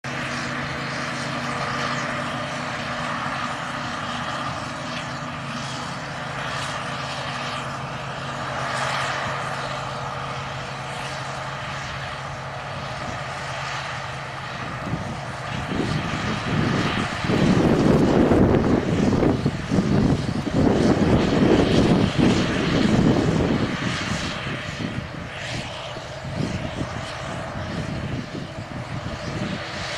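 Claas Jaguar self-propelled forage harvester running with a steady engine drone; about halfway in it turns louder and rougher, rising and falling for several seconds before settling back.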